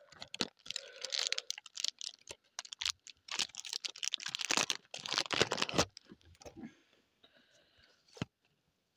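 A trading-card pack wrapper being torn open and crinkled by hand: dense crackling and rustling with sharp clicks, which dies down about six seconds in and leaves one click near the end.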